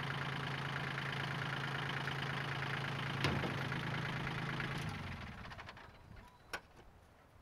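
Kioti CK22 compact tractor's three-cylinder diesel engine idling steadily, then shut off about five seconds in. A sharp click comes about three seconds in, and a fainter one after the engine has stopped.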